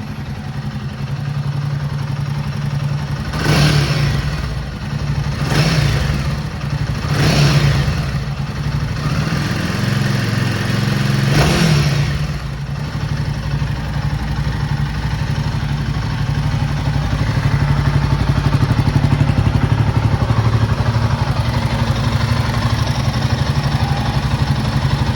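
Royal Enfield Himalayan 450's single-cylinder engine running hot at idle, revved briefly four times in the first twelve seconds, then idling steadily. Freshly reset valve clearances: the intermittent tick is gone, leaving a light constant tick typical of slightly loose clearances.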